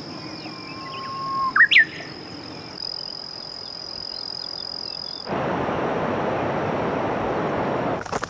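Outdoor nature ambience: a steady high insect trill, and about a second and a half in a single bird call, a held whistle that breaks into quick rising notes. A little after five seconds the trill gives way to a steady rushing noise.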